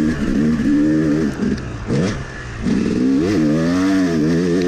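Yamaha YZ250 two-stroke dirt bike engine revving under hard riding, pitch climbing and falling as the throttle works; it drops off the throttle about two seconds in, then revs up sharply and pulls hard again.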